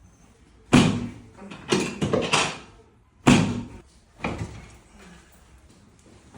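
A series of about six sharp thuds and clunks during a chiropractic adjustment on the treatment table, each dying away quickly. The loudest come about a second in and about three seconds in.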